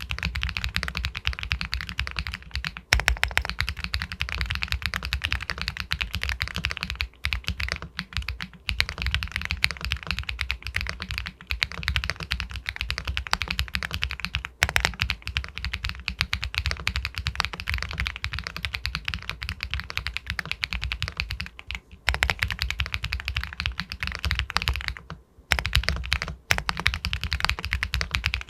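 Fast continuous typing on a full-aluminum mechanical keyboard (Epomaker Galaxy 80 Pro) with White Jade linear switches: dense keystrokes with a few brief pauses.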